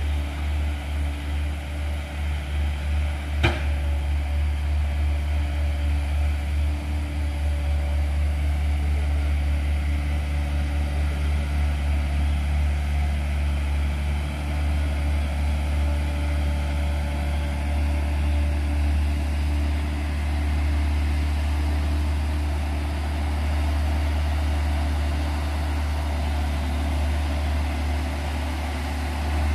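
Hino cargo truck's diesel engine working under load as it climbs a steep hairpin, a steady deep rumble that throbs unevenly for the first several seconds. A single sharp click about three and a half seconds in.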